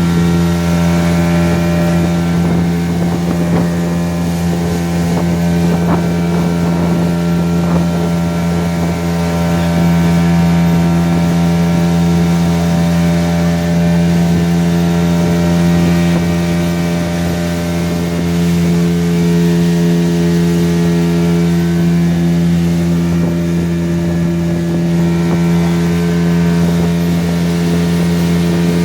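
Motorboat engine running at a steady, unchanging pitch under way, with the hiss of water and wind.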